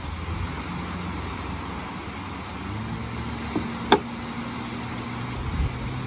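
Motorboat's outboard engine running offshore, its note stepping up to a higher, steady pitch a little under three seconds in as the boat speeds away, over a steady wash of surf. There is one sharp click a little before the four-second mark.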